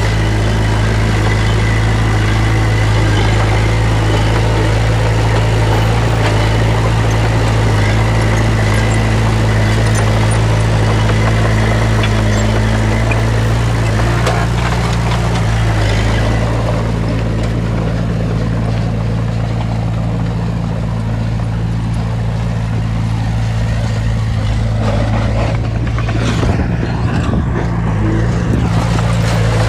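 Heavy diesel engine of earth-moving machinery running steadily at a constant speed, with a busier clatter and rattle over it that eases off about halfway through and a few knocks near the end.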